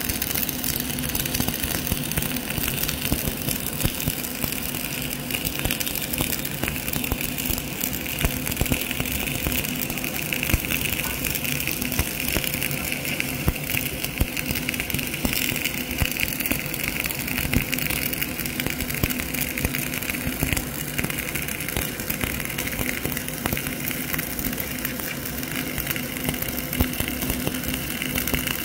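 Flux-cored arc welding: the arc crackling and sizzling steadily as the wire feeds into a vertical fillet weld, with a steady hum underneath.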